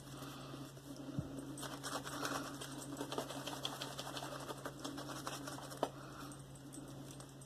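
Silvertip badger shaving brush swirling Mitchell's Wool Fat soap lather, a faint rapid crackle of small wet clicks. A steady low hum runs underneath.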